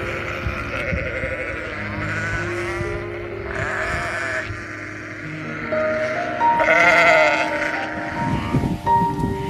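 Sheep bleating several times, the loudest and longest bleat about seven seconds in, over steady background music.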